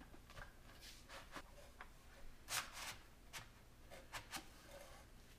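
Faint scattered clicks, scrapes and rustles of a rocket being handled as a plastic nose cone is pushed into the body tube and the assembled rocket is lifted, with the loudest two clicks about halfway through.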